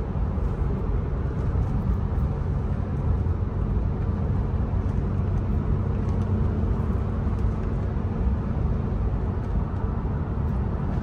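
A moving car's engine and tyre noise heard inside the cabin: a steady low rumble with a faint engine hum, unchanging throughout.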